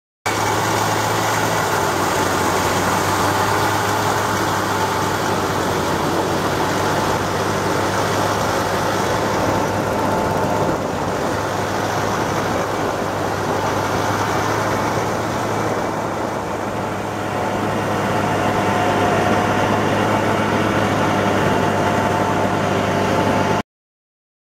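Vintage Ski-Doo snowmobile's two-stroke engine running steadily, easing off slightly about two thirds of the way through and then picking up again, before it cuts off suddenly near the end.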